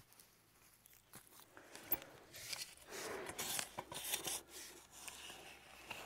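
Dry garden soil scraping and crunching as potatoes are dug out by hand and with a spade. A sharp click about two seconds in, then a couple of seconds of louder scraping and crunching that eases off near the end.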